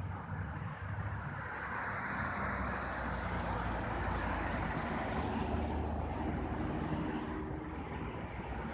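A distant engine rumbling with a low hum, building about a second in and easing off near the end, with wind on the microphone.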